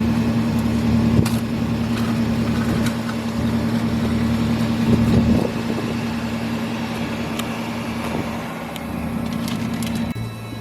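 Vehicle engine idling with a steady low hum; the hum changes just before the end.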